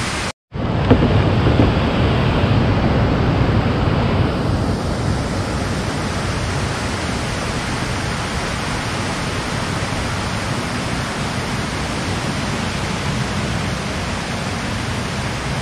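Steady, loud rush of water pouring out below a dam, an even roar with no breaks apart from a momentary cut-out just under half a second in.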